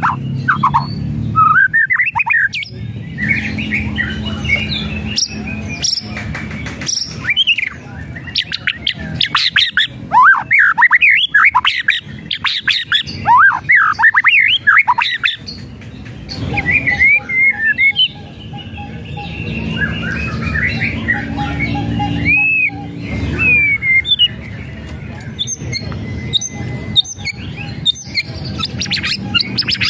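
White-rumped shama singing: dense runs of rapid sweeping whistled notes mixed with harsh squawking chatter (the 'kretekan'), in loud bursts with short pauses between them.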